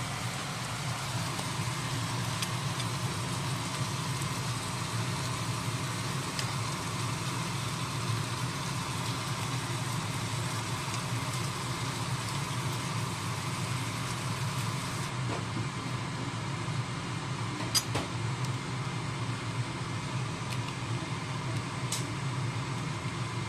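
Steady whirring hum of a kitchen extractor fan running over the stove. A single sharp click or clink about three-quarters of the way through, and a fainter tick shortly after.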